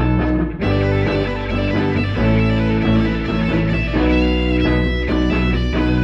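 Outro background music led by guitar, with a steady bass line and an even beat.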